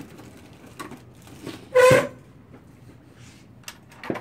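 Tools being handled and sorted: scattered light knocks and clinks, with one short, loud, high-pitched squeak-like tone about two seconds in.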